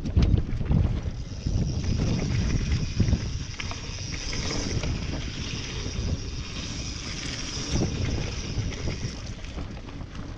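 Wind buffeting the microphone of an action camera mounted on a Canyon Exceed mountain bike, over the rumble and rattle of the bike and its tyres riding a dirt forest trail. The rumble is uneven and strongest at the start.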